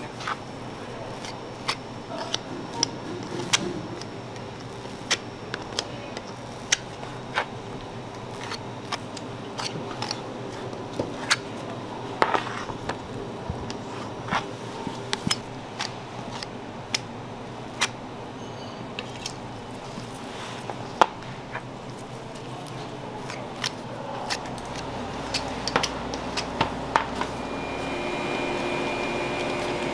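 Clear plastic cube cake containers clicking and tapping as they are handled, lidded and set down on a stainless-steel counter. The knocks are irregular, a few every second or two, and come more thickly near the end, over a steady kitchen hum.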